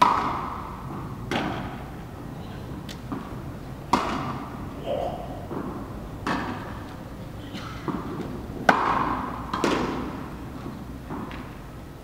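Tennis ball being struck by rackets and bouncing on the court during a rally: sharp hits every one to two seconds, each echoing through the indoor tennis hall. The loudest hits come right at the start and about nine seconds in.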